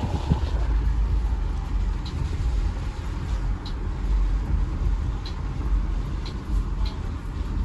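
Car on the move, heard from inside the cabin: a steady low rumble of engine and road noise, with a few faint ticks scattered through it.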